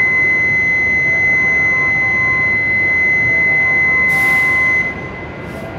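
Departure warning buzzer sounding one steady high tone as the Shinkansen's doors are about to close, cutting off about five seconds in. A short hiss comes just before it stops.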